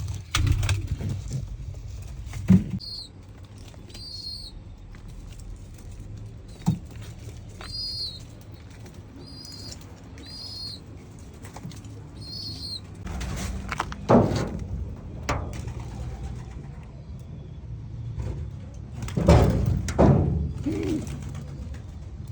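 Pigeons: a run of short, high chirps in the first half, then a few bursts of wing flapping in the second half, over a steady low rumble.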